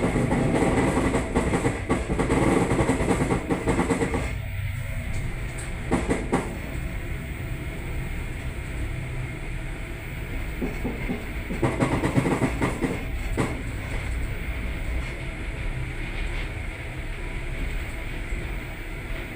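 Suburban electric train running along the track, heard from inside a carriage: a steady low rumble with the wheels clattering over rail joints now and then.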